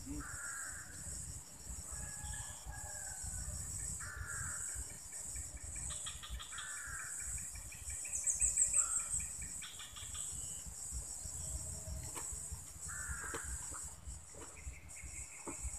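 Insects chirping steadily at a high pitch, with short bird calls repeating every second or two and a louder rising trill about eight seconds in.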